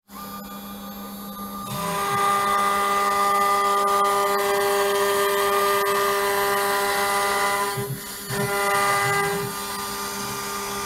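CNC router spindle running and cutting wood with a 1/8-inch straight end mill, a steady whine with several overtones. It gets louder about two seconds in, dips briefly near eight seconds, and eases off near the end.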